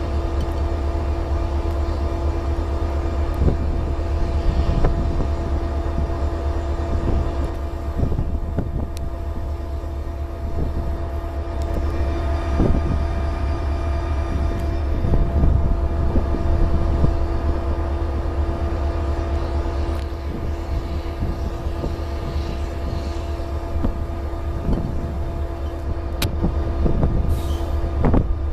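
Freight train of covered hoppers and tank cars running on the rails: a steady low rumble with a steady hum over it.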